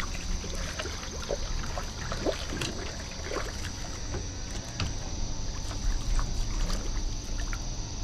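Light splashing and sloshing at the water surface as a bass swirls at a lure, with scattered small clicks over a steady high insect drone and a low wind rumble.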